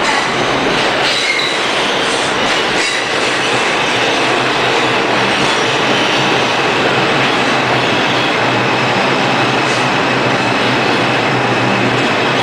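New York City Subway train running past on the rails: a steady, loud rumble of steel wheels on track with a faint high wheel squeal, and a few clacks over rail joints in the first seconds.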